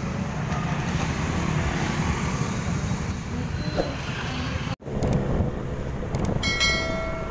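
Busy street traffic: motorbike and scooter engines and passing cars in a steady rumble. The sound cuts out for an instant about two-thirds of the way in and comes back, with a short horn blast near the end.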